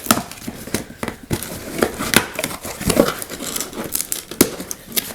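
Packing material crinkling and rustling in irregular crackles as it is handled and pulled apart to unpack a boxed item, with a few louder snaps.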